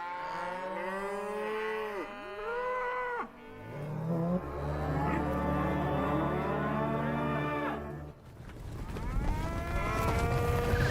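Several pitched tones swooping up and down in arcs, with a steady low drone held underneath from about three and a half to eight seconds in. The sound dips briefly near eight seconds, then the swoops come back.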